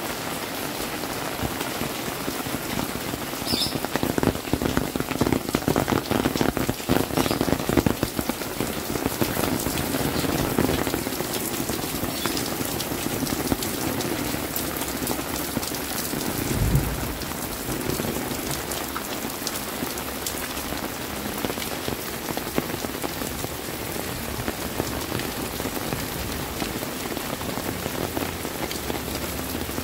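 Steady rain falling on roofs and a wet concrete alley, with a cluster of close drips and splashes between about four and eight seconds in. A brief low thump comes about seventeen seconds in.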